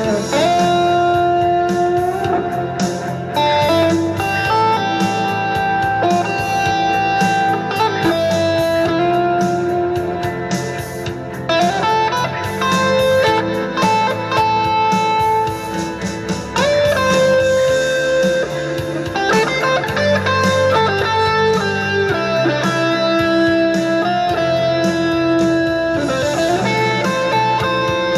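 Telecaster-style electric guitar playing a blues-rock lead: single-note lines with held notes and string bends that slide up into pitch.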